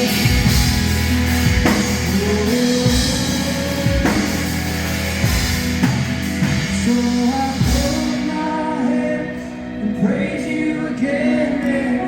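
Live worship band music: singing over a drum kit and instruments.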